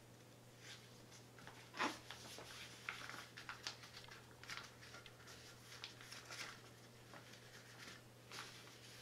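A packed camp cook kit in a drawstring stuff sack being handled and lifted: soft rustling of the fabric with a few light clicks and knocks, the sharpest about two seconds in. A faint steady low hum sits underneath.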